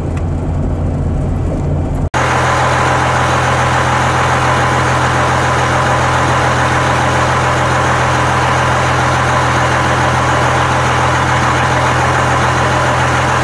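Road noise inside a moving pickup truck's cab. About two seconds in it cuts suddenly to a loud, steady engine idle with a low hum that does not change.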